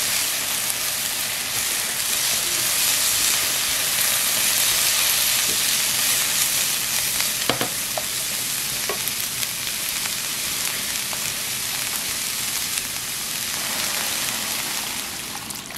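Diced vegetables (onion, garlic, carrot, celery and tomato) sizzling as they are sautéed in olive oil in a frying pan and stirred with a spatula. There is a steady sizzle, with a couple of sharp clicks of the spatula against the pan about halfway through. The sizzle eases off near the end.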